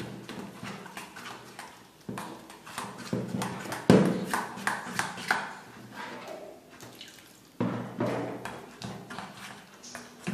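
Metal spoon scraping and clicking against a steel bowl as flour and cornflour are stirred into batter, with a little water poured in from a plastic jug.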